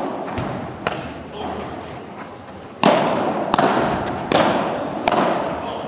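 Padel ball hits during a rally: racket strokes and the ball bouncing off the court and glass walls. About five sharp knocks come in an uneven rhythm, the loudest about three seconds in, each followed by a long echoing tail.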